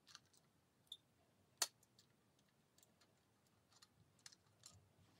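Faint clicks and small knocks as a hand handles a Berker analog room thermostat insert in its flush-mounted wall box, with one sharper click about a second and a half in. Otherwise near silence.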